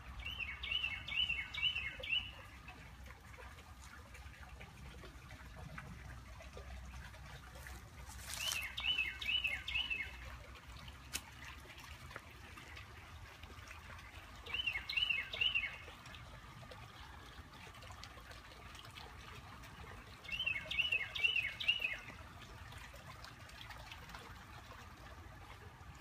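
A songbird singing the same short song four times, each a quick run of four or five repeated notes, with long pauses between songs.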